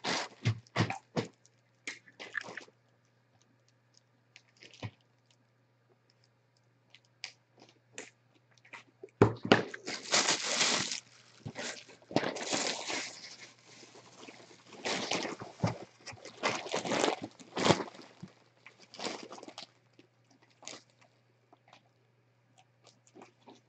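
Thin plastic bag crinkling and rustling as it is handled: a few scattered crinkles at first, then nearly quiet for several seconds, then repeated bursts of crinkling from about nine seconds in.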